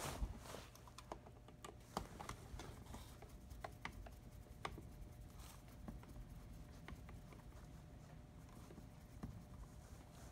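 Faint, scattered clicks and taps of small parts being handled as a component is taken out of the valve and carriage assembly, a few sharp ticks a second or so apart.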